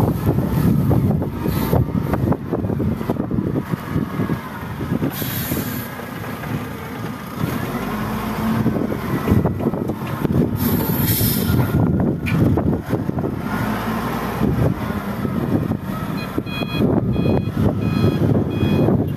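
Wheel loader's diesel engine running under load as the bucket is lifted and tipped into a dump truck, with two short hisses partway through. Near the end a reversing alarm starts beeping about twice a second as the loader backs away.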